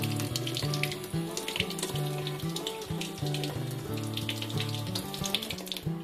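Kitchen tap running into a stainless steel sink, water splashing steadily, with acoustic guitar music underneath.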